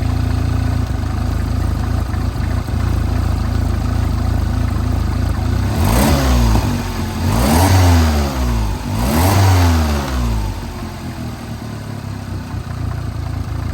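Mini Cooper S R56 1.6-litre turbocharged four-cylinder engine idling, then revved up three times in quick succession about six seconds in before dropping back to idle. It is being run to bring out a timing-chain noise: the chain is believed worn or damaged.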